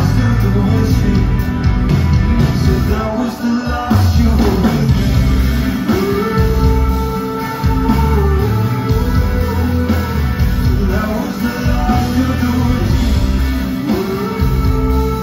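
Live rock band playing loud, heard from the audience: electric guitars over a heavy low end, with a lead line that bends up and down.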